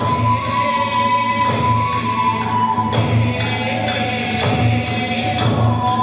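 Kagura hayashi accompaniment: a bamboo flute holding long notes over steady beats of the big taiko drum and clashing hand cymbals (tebyoshi).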